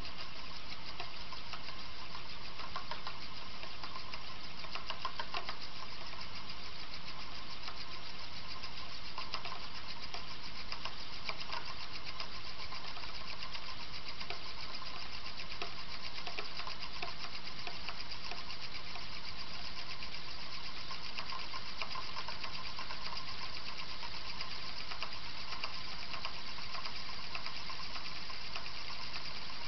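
Chrome-plated steel Euler's Disk spinning and rolling (spolling) on its concave mirror base, making a steady hum made up of very rapid rattling contact.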